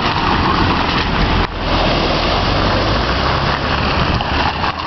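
Steady rush of hurricane wind and surf, with a car engine running low underneath; the noise dips briefly about one and a half seconds in.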